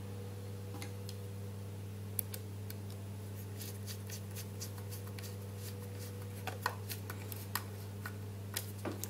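Small irregular clicks and ticks of a hand screwdriver driving the last screw into the plastic base of a waving lucky cat. The clicks come more often in the second half, over a steady low hum.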